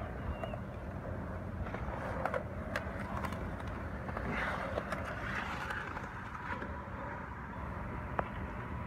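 Skateboards rolling on a concrete bowl, with several sharp clacks of boards striking the concrete over a steady low rumble.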